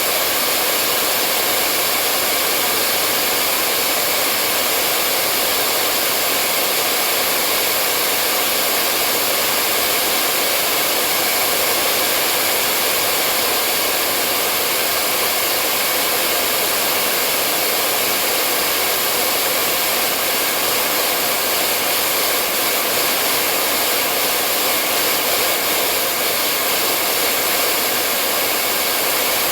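Hair dryer running continuously with a steady, even rush of air and motor hum, heavier in the high frequencies, not changing at all.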